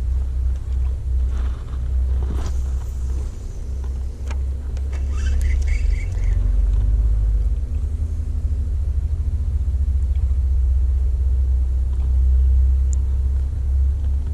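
Low, steady rumble of wind buffeting the microphone out on the boat, with the level rising and falling unevenly.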